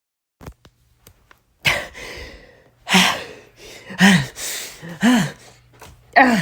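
A person gasping and panting heavily, about once a second, each gasp breathy with a voiced groan, over a faint steady low hum. The gasps are acted distress at being overheated.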